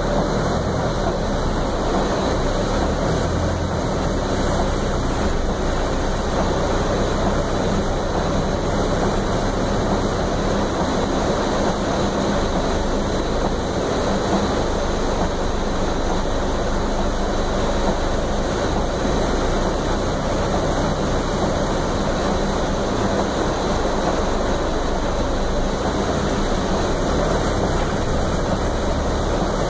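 Swollen river or storm runoff rushing in a steady, unbroken roar.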